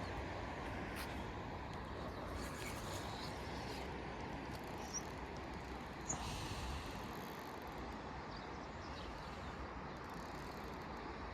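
Steady outdoor background noise, a low even rumble with no clear source, with two brief faint high chirps about five and six seconds in.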